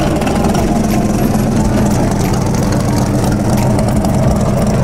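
V8 engine of a red second-generation Corvette Sting Ray coupe running steadily at idle as the car creeps through the lot.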